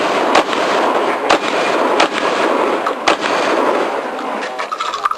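Shotgun fired in a practical shooting stage: four loud shots in about the first three seconds, roughly a second or less apart, each followed by ringing echo.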